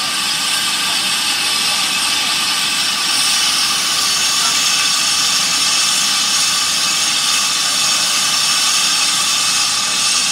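Steam locomotive blowing off steam: a loud, steady hiss that keeps up without a break.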